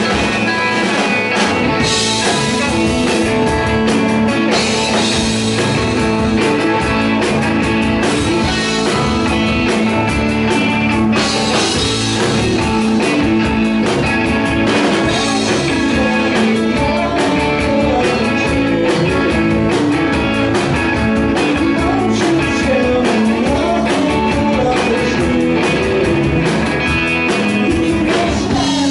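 Live rock band playing a song: electric guitars over a drum kit with cymbals, loud and steady.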